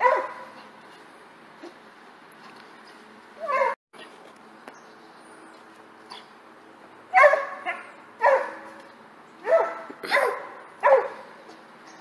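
A small dog barking: one bark at the start, another about three and a half seconds in, then five barks in quick succession from about seven to eleven seconds in.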